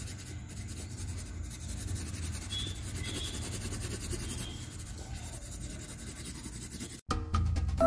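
A steady scratchy rubbing noise with a low rumble underneath, which cuts off suddenly about seven seconds in. After a brief gap, music with distinct notes starts near the end.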